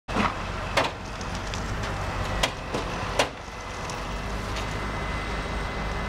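Heavy tow truck's engine running steadily while its boom lifts an overturned concrete mixer truck back toward its wheels. A few sharp metallic knocks from the truck and rigging stand out, the loudest about one, two and a half, and three seconds in.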